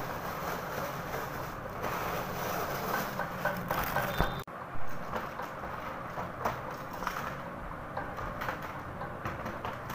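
Plastic wrap crinkling and rustling as photo frames are unwrapped and handled, with small crackles throughout and a louder knock about four to five seconds in.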